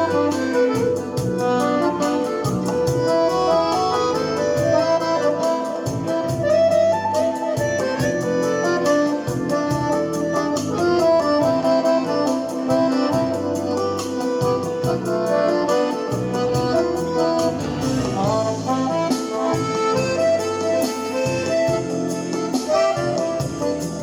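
Accordion playing a melody over a MIDI backing track with a bass line and a steady beat.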